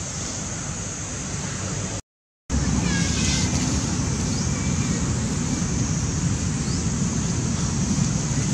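Wind rumbling on the microphone over a steady outdoor hiss, cut off for half a second about two seconds in and louder after. A few faint chirps a second after the break.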